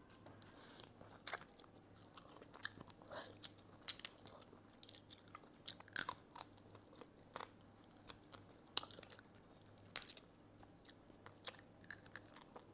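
Close-up eating of steamed mud crab: irregular sharp cracks and clicks as the shell and legs are broken open and bitten, with chewing of the crab meat.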